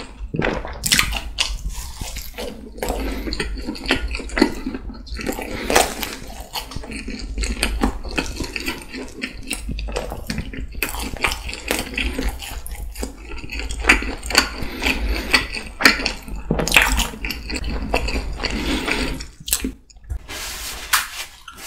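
Close-miked chewing of a mouthful of pizza crust: an irregular run of wet mouth clicks and crackles, with a few louder crunches and a short lull near the end.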